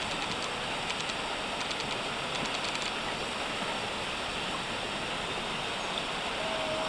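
Steady rush of river water, with faint quick clicks of water in the first few seconds.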